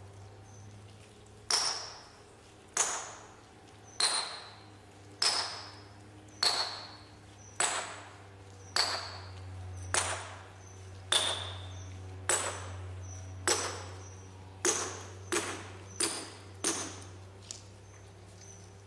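Sledgehammer striking the steel splitting wedges set in a row of drilled holes along a granite block. Each blow is a sharp metallic clink with a high ringing ping, about one strike a second, the blows coming quicker near the end as the wedges are driven to split the stone.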